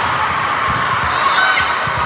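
Players and spectators shouting and cheering in a gymnasium during a volleyball rally, with a few thuds of the ball being played.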